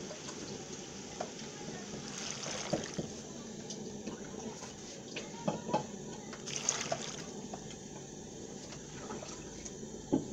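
Water being poured into a cooking pot over cut plantain and meat, a steady pour with a few light knocks.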